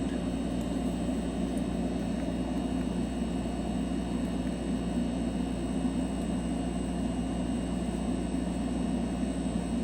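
Steady mechanical hum of a running motor, even and unbroken, with no separate events.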